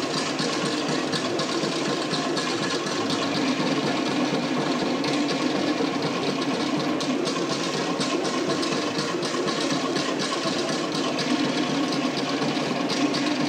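Tahitian drum ensemble playing a fast, unbroken rolling rhythm, dominated by the rapid clatter of toere slit drums.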